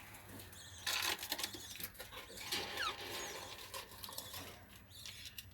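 Budgerigars chirping in short, high, squeaky calls, with scattered clicks and rustles.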